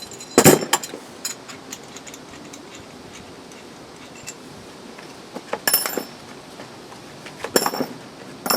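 Steel bolts, washers and nuts from a truck bed crossmember kit clinking and clattering as they are handled. There is a heavier knock just after the start, then scattered clicks, and short bursts of metallic jangling past the middle and near the end.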